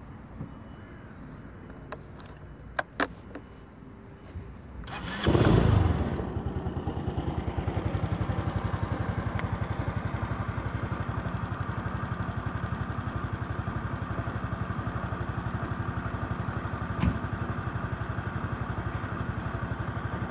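A few clicks, then about five seconds in the Honda SES 125 Dylan scooter's single-cylinder four-stroke engine starts, catching with a brief loud rev, and settles into a steady idle.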